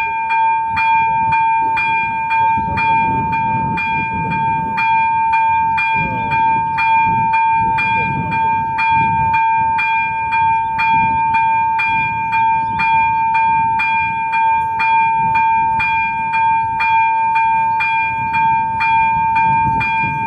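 Electronic level-crossing bell (ZV-02) ringing its warning tone, a steady ding struck about twice a second while the crossing lights flash, over a low rumble that comes and goes.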